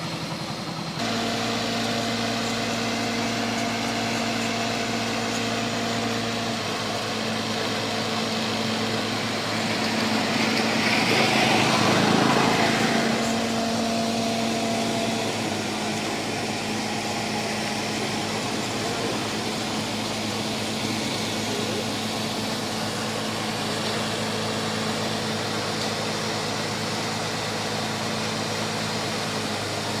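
An engine idling steadily, with a broader rushing noise that swells louder about ten seconds in and fades again a few seconds later.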